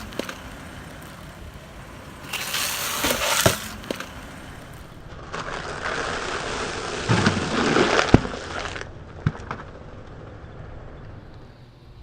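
A car tire rolling over and crushing a brittle object: two bouts of crunching and crackling, the second longer and ending in a sharp crack.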